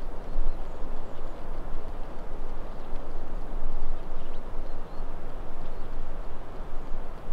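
Steady wind noise buffeting the microphone, a rumbling hiss that rises and falls in gusts.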